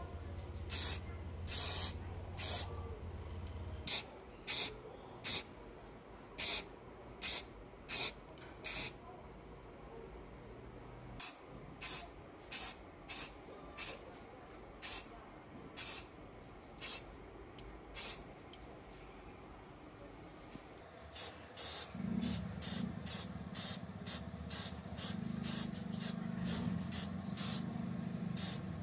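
Aerosol spray paint can sprayed in many short bursts, each a brief hiss, a little more than one a second at first, with two pauses of a couple of seconds, then faster, two or three a second, near the end.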